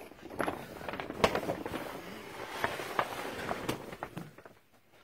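Plastic tarpaulin boat cover rustling and crinkling as it is lifted and pulled back, with sharp crackles throughout.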